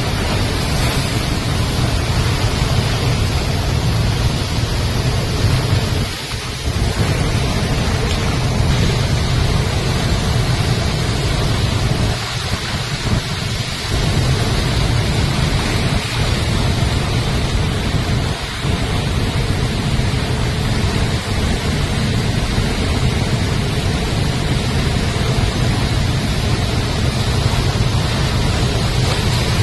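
Floodwater released through the Sriram Sagar dam's spillway gates, rushing and crashing over boulders below the dam in a loud, steady, deep roar. The roar eases briefly a few times.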